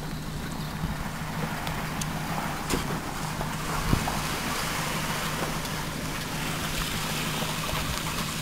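Open-water ambience: wind and rippling water, with a steady low engine hum underneath and a single knock about four seconds in.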